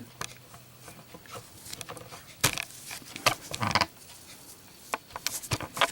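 Cardboard packaging of a lighter box being handled: faint rustling broken by a scattering of short, light clicks and taps, the sharpest about two and a half seconds in and several near the end.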